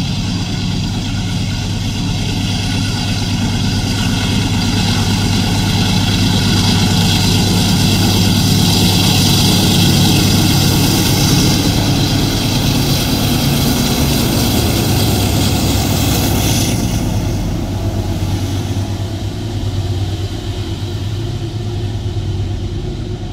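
Diesel-electric freight locomotives working at full power, pulling a loaded iron-ore train up a grade, the steady engine drone under a noisier upper layer. The sound swells as they pass, then dulls and fades somewhat in the last several seconds.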